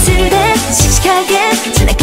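K-pop song playing, a woman's voice singing a wavering melody over a pulsing bass and synth beat.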